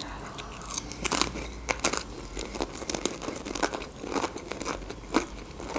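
Close-miked biting and chewing of crunchy food: a bite, then irregular crisp crunches with the mouth closed.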